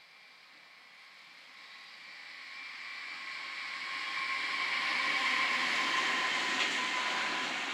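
A pair of SBB Cargo E474 electric locomotives running light pass close by. A steady high whine sits over wheel-on-rail noise; both grow as the locomotives approach, are loudest about five seconds in, and begin to fade near the end.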